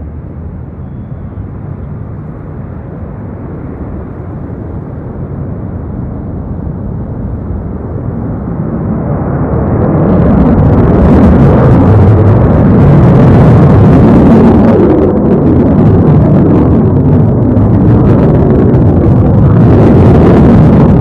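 Lockheed Martin F-22 Raptor's twin Pratt & Whitney F119 jet engines in flight. A dull rumble grows about ten seconds in to loud, full jet noise that stays strong to the end, swelling and dipping slightly as the jet manoeuvres.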